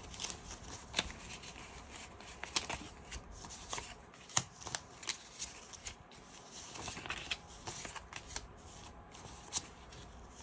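Paper banknotes rustling and flicking as they are handled and laid down in piles on a countertop: irregular soft rustles with scattered crisp snaps.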